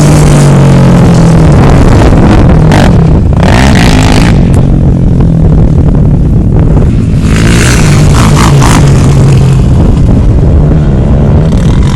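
ATV engine running under throttle, its pitch rising and falling, with several bursts of rushing noise over it. Recorded very loud and close.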